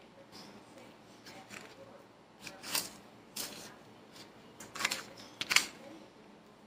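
Metal fork scraping and tapping on a paper plate while pressing chicken into dry breadcrumbs: a handful of short scratchy scrapes, the loudest near the end.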